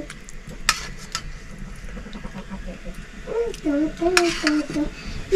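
Steel kitchen tongs clinking against stainless-steel bowls and a plate as boiled eggs are lifted and set into bowls of noodles. There are a few sharp metallic clicks, once about a second in and again near the end.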